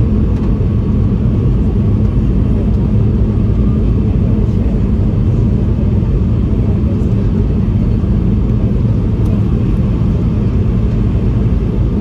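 Steady low rumble of a Boeing 717-200's engines and cabin noise, heard inside the economy cabin.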